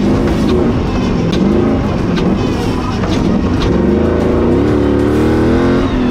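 Off-road competition 4x4's engine revving hard, its pitch rising and falling repeatedly, with a few sharp clicks. Near the end a long climb in pitch breaks off with a sudden drop.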